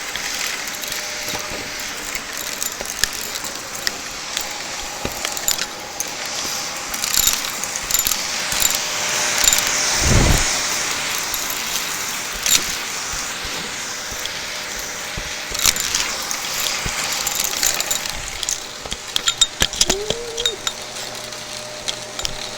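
Shark vacuum cleaner running steadily, with small crunchy debris crackling and clattering as it is sucked up. There is a dull thump about ten seconds in.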